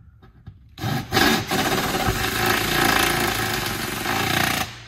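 Cordless impact driver running hard and fast, driving a self-tapping bolt into a pre-drilled steel ceiling beam. It starts about a second in and cuts off just before the end.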